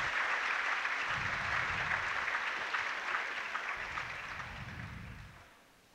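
Crowd applauding, the clapping dying away over the last couple of seconds.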